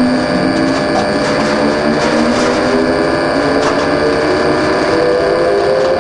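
Stationary industrial wood chipper spinning up: its electric motor and belt-driven rotor run with a whine that rises steadily in pitch as they come up to speed.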